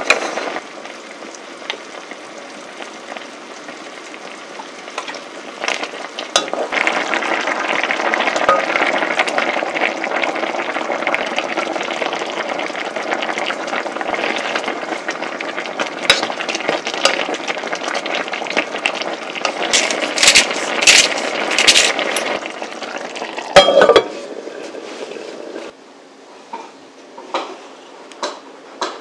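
Rice porridge boiling hard in a cast-iron pot, a steady bubbling hiss. A run of spoon stirring and clinking against the pot comes a little past two-thirds of the way in, with one loud knock. Then it goes quieter.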